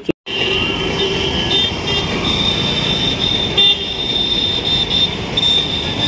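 Busy street traffic noise, with a high-pitched vehicle horn tooting on and off.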